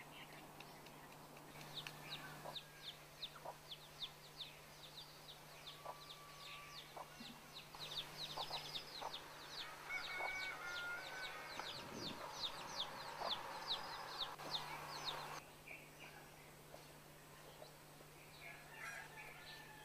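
Chickens calling: a rapid series of high, falling peeps, about three a second, that starts near the beginning and stops a few seconds before the end, over a steady low hum.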